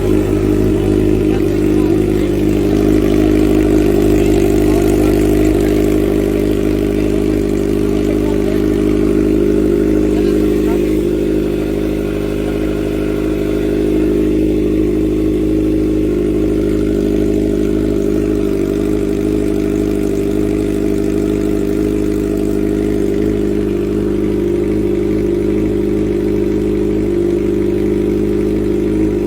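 Kawasaki ZX-4RR's inline-four engine running through an aftermarket muffler, its note holding steady at one engine speed without revving.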